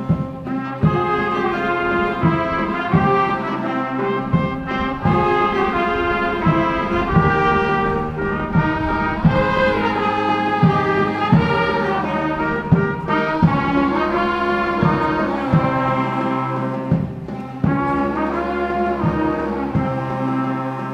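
Brass band playing a melody in held and moving notes, with drum hits underneath.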